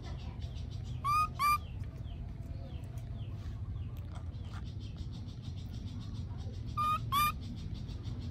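Two pairs of short, high, clear animal calls, one pair about a second in and another near the end. They sound over a faint, rapidly pulsing background and a low steady rumble.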